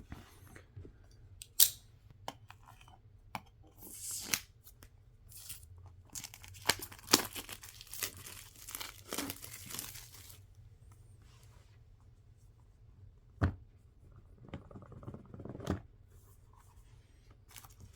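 Packaging being torn and crumpled by hand, in irregular rustling bursts with small clicks and knocks. The handling is busiest for the first ten seconds or so, then comes only in a few short bursts.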